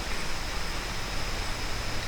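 Steady background hiss with a thin, steady high-pitched tone above it and a low rumble beneath. No distinct event stands out.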